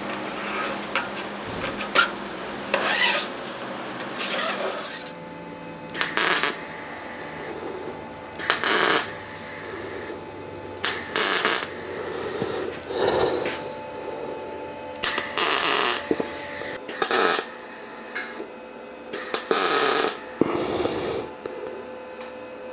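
Hand file rasping across the freshly saw-cut edge of a metal piece, deburring it in a series of separate strokes, about one every one to two seconds.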